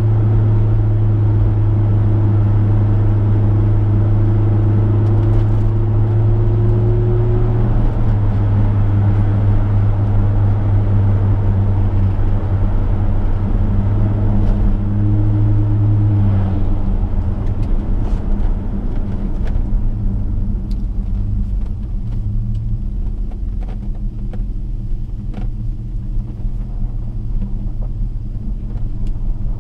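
1967 Chevrolet's V8 engine and road noise at a steady cruising drone. A little past halfway the engine note drops and quietens as the car slows, leaving a lower, softer running sound with scattered faint clicks.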